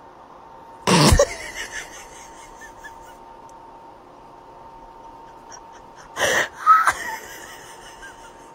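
Three short, sharp breathy bursts: one about a second in that falls in pitch, and two close together around six seconds in. A faint steady hum runs between them.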